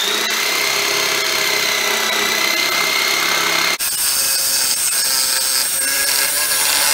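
Corded jigsaw running and sawing through the old wood of a beehive box wall, cutting off the finger-joint teeth at its top. A brief dip nearly four seconds in, after which it runs on at a higher pitch.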